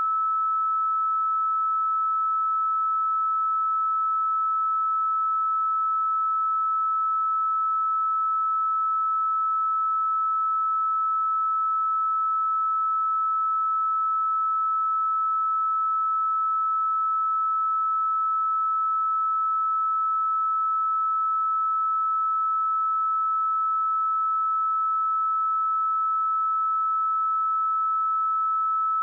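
A pure 1305 Hz sine-wave test tone, a single steady high-pitched note held without any change in pitch or level.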